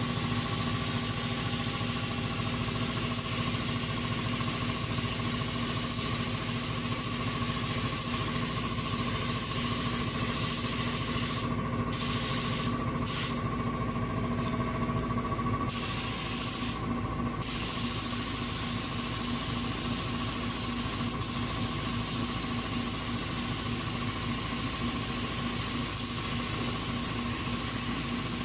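Air spray gun with a 1.8 tip spraying thick primer, a steady hiss that stops three times for a moment about halfway through as the trigger is let off. A steady motor hum runs underneath.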